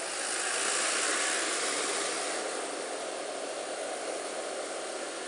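Rushing wind and traffic noise on a scooter-mounted camera, swelling to a peak about a second in and then easing off.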